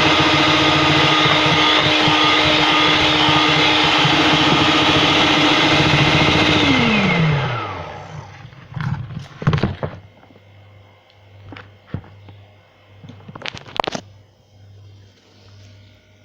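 Electric mixer running steadily at speed, beating a batter of eggs, sugar and oil, then switched off about seven seconds in, its whine falling in pitch as it winds down. A few sharp knocks and clatters follow.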